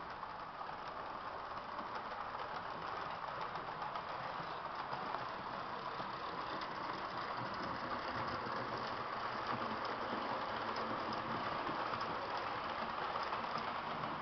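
Märklin H0 model diesel locomotive, a BDZ Ludmilla, running with its coaches: a steady whir of its small electric motor and a light rattle of wheels over the rails. It grows a little louder over the first few seconds.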